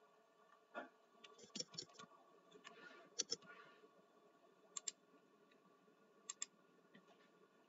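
Faint clicks of a computer mouse and keyboard: scattered single clicks, a brief run of quiet typing a few seconds in, then paired mouse clicks twice near the middle.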